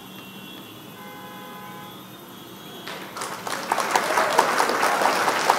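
Faint steady tones, then about three seconds in a burst of recorded applause starts suddenly and carries on loudly: the quiz's sound effect for the answer reveal.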